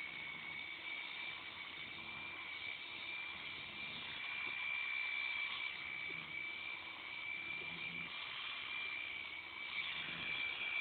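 Electric sheep-shearing handpiece running with a steady high whine as it takes off the last of the fleece.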